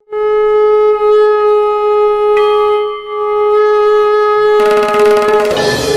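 A conch shell (shankh) blown in one long, steady note lasting about five seconds. Near the end, drums and other instruments come in underneath it.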